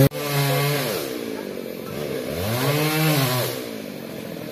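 Two-stroke chainsaw running, its engine revved and dropping back just under a second in, then revved up and down once more about two and a half to three and a half seconds in before settling to a low idle.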